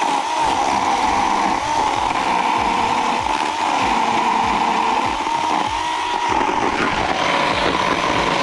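Parkside 20 V cordless electric chainsaw running at speed with a steady high whine. Its pitch dips and recovers a few times, as under cutting load.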